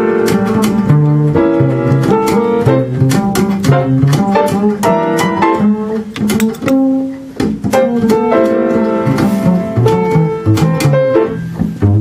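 Upright double bass played pizzicato in a small jazz group, a steady run of plucked notes with a short pause about seven seconds in.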